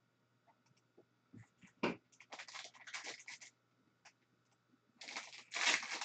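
Foil wrapper of an Upper Deck SP Game Used hockey card pack crinkling and tearing as it is handled and ripped open, with one knock about two seconds in. The crinkling is loudest near the end.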